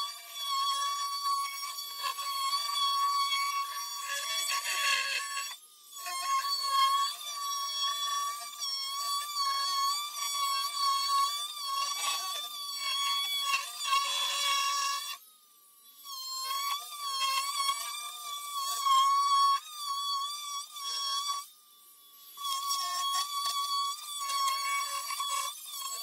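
Oscillating multi-tool running as its blade cuts into a particleboard countertop: a steady high whine that wavers under load. It stops three times, winding down in pitch each time before starting again.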